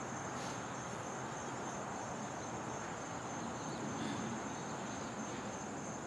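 A steady, high-pitched chorus of crickets trilling without a break over a low, even outdoor background hiss.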